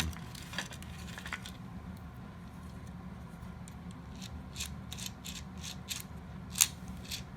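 A run of small, sharp plastic clicks and taps from a toy robot's shooter mechanism and its gear parts being handled, coming thicker in the second half, with one louder click near the end.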